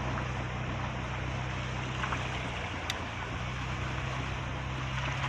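Steady rushing of floodwater running along a street after a hailstorm, over a low steady hum, with one faint click about three seconds in.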